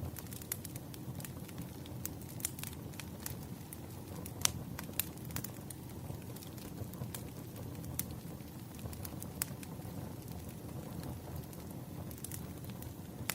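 Campfire crackling: a steady low rumble of burning with frequent irregular sharp pops and snaps, the loudest about four and a half seconds in.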